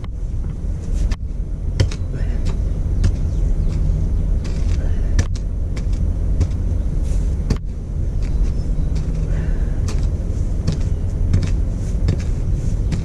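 Stump grinder's 13 HP single-cylinder Honda engine running steadily under load as the cutter wheel grinds into a stump, with frequent sharp clicks over the low engine rumble.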